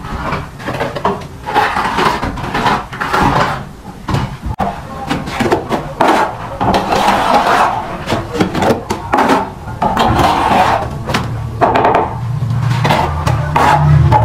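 Steel trowel scraping and scooping cement mortar from a tray and slapping it onto a brick wall, in repeated irregular strokes. A low steady hum grows louder near the end.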